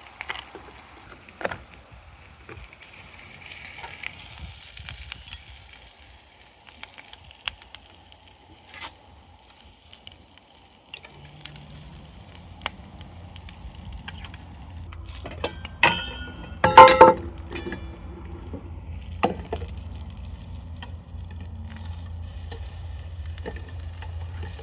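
Mushrooms frying in a small stainless steel mess-kit pan on a camp stove, with light clicks and scrapes of the pan being handled. Past the middle comes one loud metallic clank with a ringing tone from the stainless steel, and a low steady hum sets in just before it.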